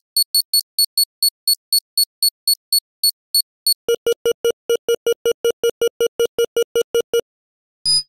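Two spy-style text-display sound effects, the electronic beeps that go with text typing out on a screen. First a run of short high-pitched beeps, about five a second; then, about four seconds in, a faster run of lower blips, about eight a second, stopping about a second before the end.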